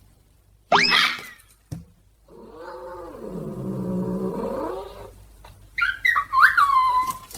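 Domestic cat yowling: one long low drawn-out call that dips in pitch and comes back up, preceded by a short sharp rising cry and followed by a few higher gliding calls.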